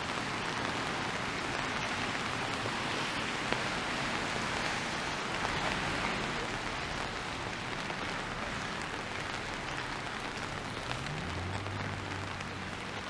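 Steady rain falling on a wet city street, an even hiss with no break. Near the end a faint low hum joins it briefly.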